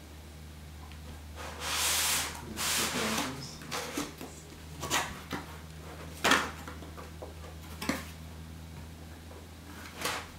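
Cardboard box and packaging being opened and handled: a long sliding rustle about one and a half seconds in, another shortly after, then a few sharp knocks and taps. A low steady hum runs underneath.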